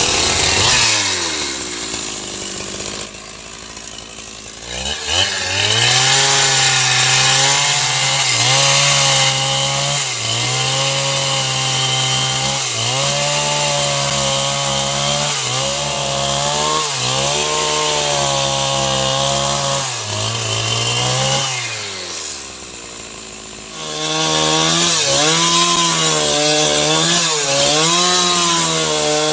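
Two-stroke chainsaw ripping lengthwise through a timber beam. It drops to idle early on, revs up about five seconds in and runs at full throttle, its pitch sagging repeatedly under the cutting load. It falls back to idle for a couple of seconds near three-quarters through, then revs up and cuts again.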